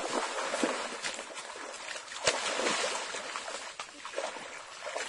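Shallow muddy pond water splashing and sloshing as people wade and grope through it, with a sharper splash about two seconds in.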